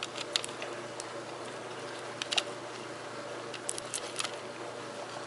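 Scattered light clicks and taps from a plastic smoke alarm and its packaging being handled, a few small clusters over a faint steady hum.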